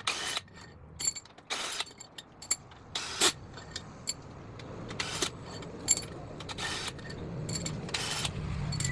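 Hand ratchet clicking in short bursts, with metallic clinks in between, as fasteners on a cylinder head are worked loose. A low rumble builds over the last couple of seconds.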